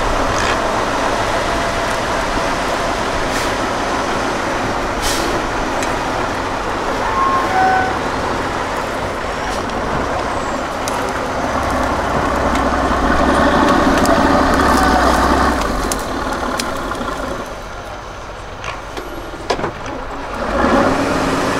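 Diesel engine of an 8x8 Tatra trial truck working under load at crawling speed, revving harder about two-thirds of the way through, easing off briefly, then picking up again near the end, with a few sharp knocks along the way.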